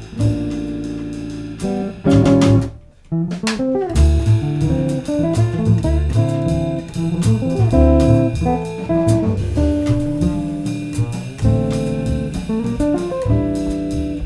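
Jazz trio playing: electric guitar chords and single-note lines over a walking double bass and drums, with a brief break about three seconds in before the band comes back in.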